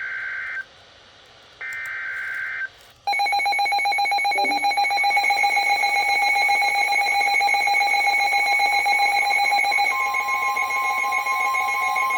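Emergency Alert System tones: two short bursts of screechy digital data tones, each about a second long, marking the end of one alert, then about three seconds in a loud, steady, harsh electronic attention tone with a fast buzzing pulse. Its pitch shifts slightly about ten seconds in.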